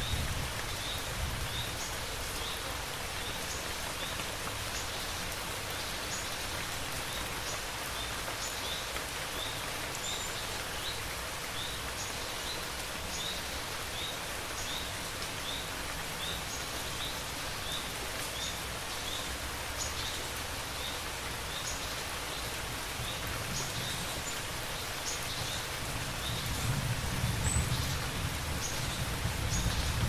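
Steady rain falling, with a short high chirp repeating every second or so through it. A low rumble of thunder builds near the end.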